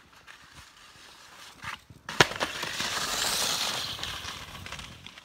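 Ski jumper landing: the skis hit the snow with a sharp slap about two seconds in, then hiss over the snow, swelling and fading as they run out.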